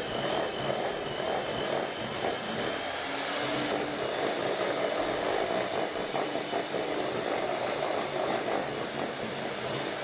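Electric hand mixer running steadily, its beaters working through a thick creamed butter-and-sugar mixture in a stainless steel bowl as an egg is beaten in.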